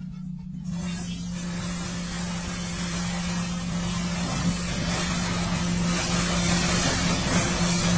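Water spraying and pouring down the rear of a coach bus being washed: a steady rushing hiss that starts about a second in and grows a little, over a steady low hum.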